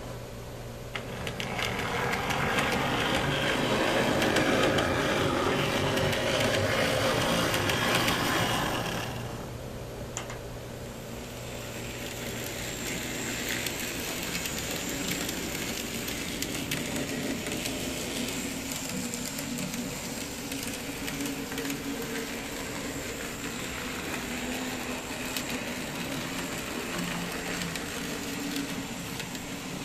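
N-scale model tram running along its track: a small electric motor whirring with the rolling of metal wheels on rail. It is louder from about a second in until about nine seconds, then quieter and steady.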